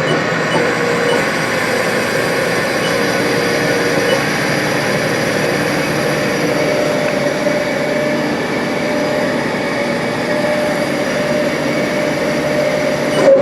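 Spindle of a Haas TM-1 CNC vertical mill running at speed after being turned up, a steady mechanical whine that rises slightly in pitch about halfway through.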